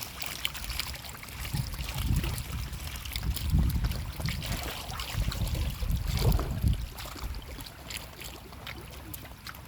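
Pond water sloshing with small scattered splashes, under a patchy low rumble on the microphone from about one and a half to seven seconds in.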